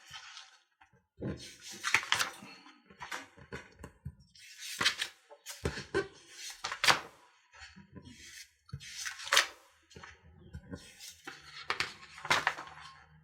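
Irregular rustling and clicking of small plastic kit parts and parts bags being handled and sorted on a work surface, in a string of short bursts with brief pauses between them.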